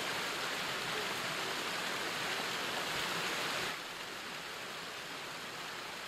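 Water rushing steadily down a small stone weir. A little under four seconds in it drops suddenly to a quieter, gentler rush of flowing river water.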